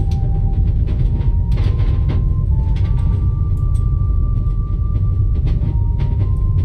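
Steady deep rumble of a train carriage running fast, with faint scattered clicks and rattles. A thin high tone is held above it and moves in steps from one pitch to another every second or two.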